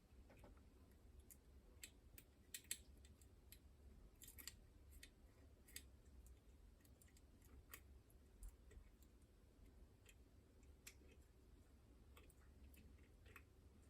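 Faint, irregular metallic clicks and ticks of lock-picking tools working inside a Chubb Detector lever lock, over a low steady hum.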